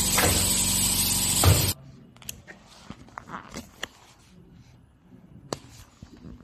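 Automatic rug-tagging machine running: a loud steady mechanical hum and hiss with a couple of heavy thumps. It cuts off abruptly about two seconds in, leaving faint handling clicks and rustles of a tagged doormat.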